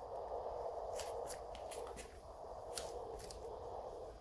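Faint handling noise: a few soft clicks and rustles over a steady low hiss.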